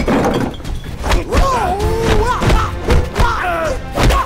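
Martial-arts film fight soundtrack: a quick run of punch and body-blow thuds, with short pitched cries from the fighters in between, over background music.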